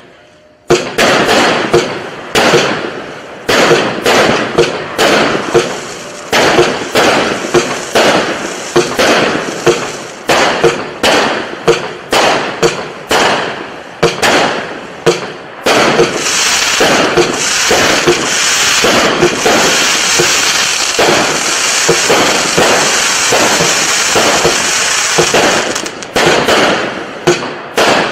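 Big Finish 50-shot firework cake firing shot after shot, roughly two sharp bangs a second as each shell launches and bursts. From just past halfway until near the end, a dense crackling from its crackle-palm effects runs continuously under the shots.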